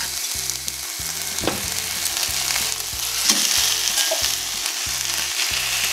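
Chicken pieces and an onion-and-ají aderezo sizzling steadily in a stainless steel frying pan. A few light knocks sound as tongs and a wooden spoon set the pieces down in the pan.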